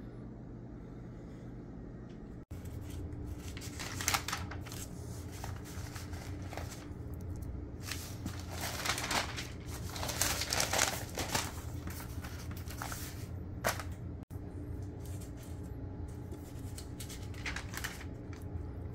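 Irregular rustling, crumpling and tearing of packaging while flat-pack furniture parts are unpacked, over a steady low hum.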